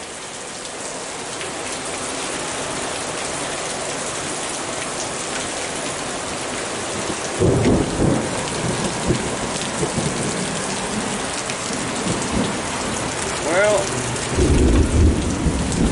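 Heavy rain with a steady hiss, broken by two loud low rumbles, one about seven seconds in and another near the end.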